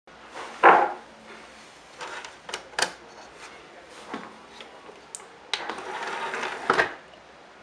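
Optical disc player tray and drive mechanism handling a CD-R: a series of sharp mechanical clicks, then a whir lasting a little over a second that ends in a knock.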